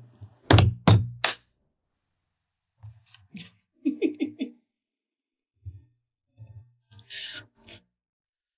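Laughter in short bursts: a few sharp bursts about half a second in, a run of quick ha-ha pulses around four seconds in, and breathy giggling near the end.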